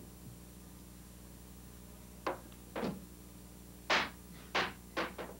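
A series of about six short, sharp knocks or clicks, irregularly spaced, starting about two seconds in, the loudest near the middle, over a steady low hum.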